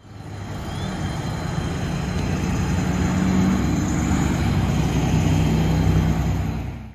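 Steady low drone of diesel fire-truck engines running, mixed with the tyre and engine noise of cars passing close by on the road; it grows louder over the first few seconds.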